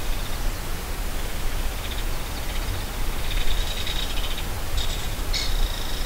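Belted kingfisher giving its dry, rapid rattling call in short runs during the second half, over a steady outdoor hiss and low rumble.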